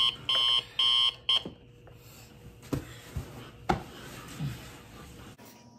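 Electronic alarm beeping in a quick, even series of high beeps, about two a second, that stops about a second and a half in. Then bedding rustles, with two short knocks.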